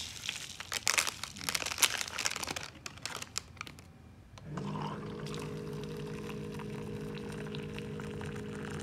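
A foil packet of salmon furikake crinkles and rattles as it is shaken out over rice. About four and a half seconds in, a Zojirushi electric hot-water pot's pump starts with a steady hum, and hot water pours into the cup.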